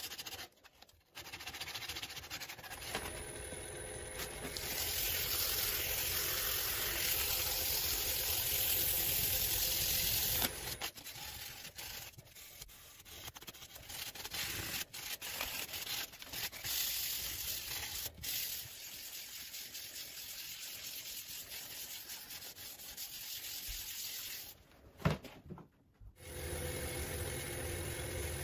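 Hands rubbing over the surface of a segmented wooden bowl held still on the lathe, a scrubbing hiss that comes and goes, strongest in the first third. Near the end, after a sharp click, the lathe motor starts and runs with a steady hum as the bowl spins.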